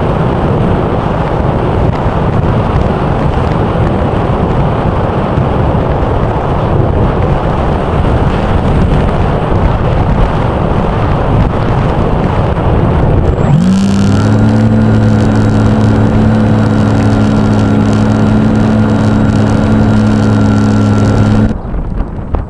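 Strong gusty wind buffeting the microphone. About two-thirds of the way in, a steady hum of several pitches starts with a short rise and holds, then cuts off abruptly about a second before the end.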